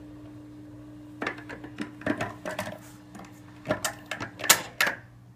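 Voice of Music Model 307 record changer mechanism clicking and clattering in a series of light mechanical clicks as the tone arm is cycled back to its rest, over a steady low hum from the player.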